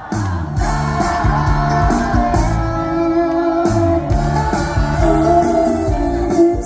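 Music: the instrumental intro of a trot song starting suddenly, a sustained melodic lead line over bass and a steady drum beat.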